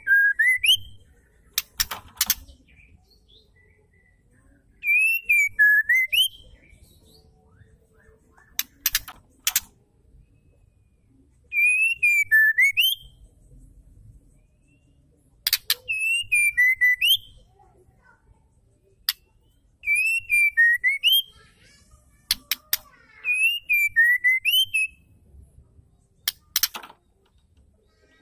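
White-rumped shama (murai batu) singing, billed as a female, repeating a short whistled phrase that dips and then rises, with sharp clicking notes and thin high twitters, about every three to four seconds. It is offered as a song to provoke male shamas into singing.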